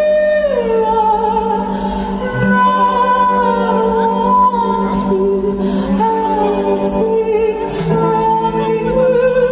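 A rock band playing live while a woman sings long, held notes that slide from one pitch to the next over steady sustained chords.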